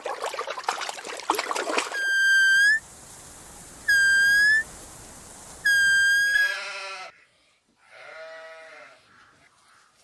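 A rough noisy stretch, then three steady, high whistle-like notes each under a second long, followed near the end by two wavering bleats from a goat or sheep.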